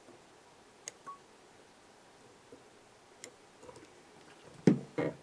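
Small fly-tying scissors snipping thread and waste material at the hook eye: a few sharp, isolated clicks, then two louder knocks near the end.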